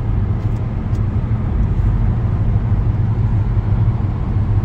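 Steady low rumble of a car's engine and tyres, heard from inside the moving car.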